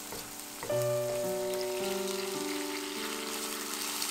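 Ground beef sizzling in fat in a frying pan, a steady hiss. Background music with held notes that change every half-second or so comes in about a second in.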